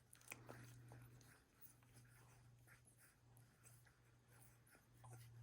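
Near silence: faint scratchy clicks and small smacking sounds of 17-day-old Welsh Springer Spaniel puppies nursing, over a low steady hum.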